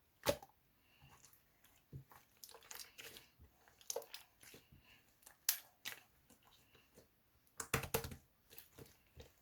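Strawberry yogurt slime being squeezed and stretched by hand, giving irregular sharp pops, clicks and crackles, with the loudest snaps just after the start, about five and a half seconds in, and around eight seconds in.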